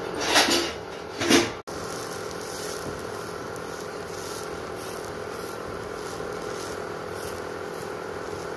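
Steady electric hum of an induction cooktop as an omelette cooks on a tawa. Two loud, short scrapes of a utensil against the pan come about half a second and a second and a half in.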